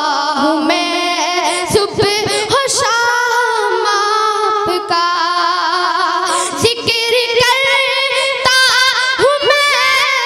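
A boy singing a naat unaccompanied in a high voice into a microphone, holding long notes with wavering ornaments and glides.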